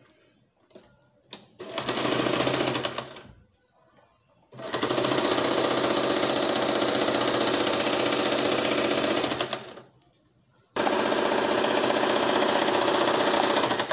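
Wonder Stitch electric domestic sewing machine running in three steady bursts as it stitches a fabric strip onto cotton gingham: a short burst about two seconds in, a long one of about five seconds, then a third that runs to the end.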